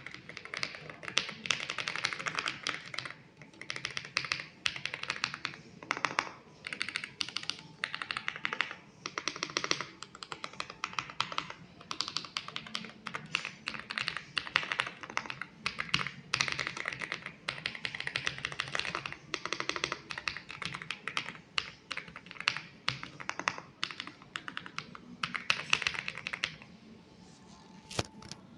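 Typing on an MCHOSE X75 mechanical keyboard: rapid runs of keystrokes in bursts a second or two long with short pauses between. The typing stops near the end, leaving one or two lone key presses.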